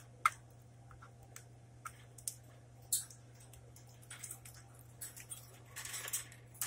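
Scattered small clicks and ticks from a pet budgerigar moving about its cage, the sharpest about three seconds in and a denser cluster near the end, over a steady low hum.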